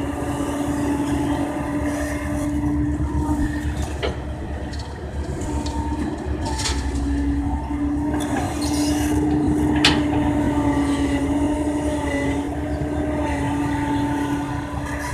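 Kobelco hydraulic excavator running, its engine and hydraulics giving a steady drone with a held whine that drifts slightly in pitch. A few sharp clanks stand out, the loudest about ten seconds in.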